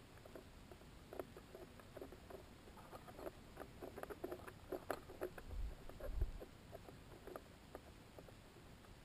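Faint, irregular soft clicks and creaks from a high-altitude balloon payload enclosure as it sways, thickest in the middle, with two dull low thumps about five and a half and six seconds in.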